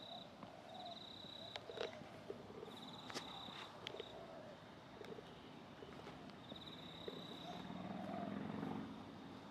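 High-pitched, pulsing insect trills repeating in short bursts with pauses between. A few sharp clicks come around two to four seconds in, and a low engine rumble swells near the end.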